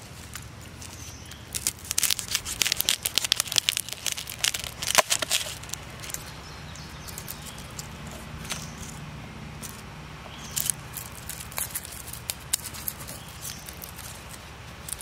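A head of garlic pulled apart by hand: a dense run of crackling and tearing of the dry papery skins for a few seconds, then scattered single clicks as the cloves come away.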